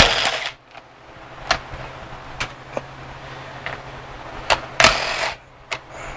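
Hands and tools working on the valve cover bolts of a bare engine: scattered light metallic clicks, and two brief noisy bursts of about half a second, one at the start and one near the end, over a faint steady hum.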